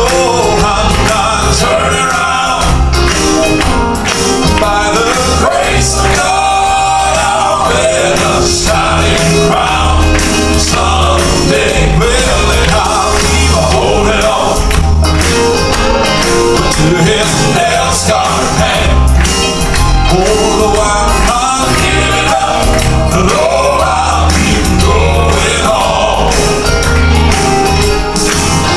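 Southern gospel male quartet singing in close harmony through microphones, with piano and a steady pulsing bass underneath.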